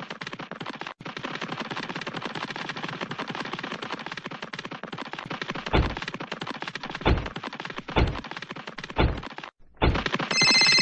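Battery-powered toy train running on a plastic track, a fast continuous clatter. In the second half come five low thuds that fall in pitch, and near the end a telephone ringing sound effect begins.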